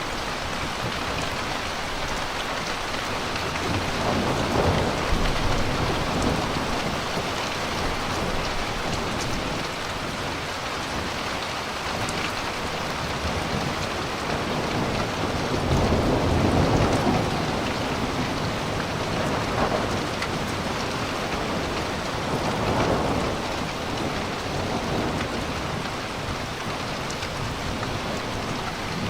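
Steady rain falling, with rolling thunder from a thunderstorm overhead swelling and fading about three times: around four seconds in, loudest around sixteen seconds, and again near twenty-three seconds.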